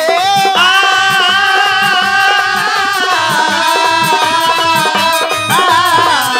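Haryanvi ragni folk music: a held, sliding melody line over a fast, steady drum beat with evenly spaced jingling percussion.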